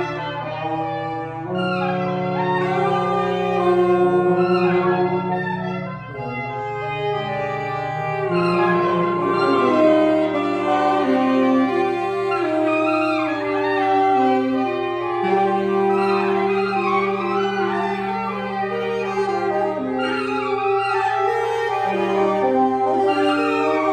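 Free-jazz ensemble of clarinet, alto and tenor saxophones improvising together, several horns holding overlapping long tones while others move around them.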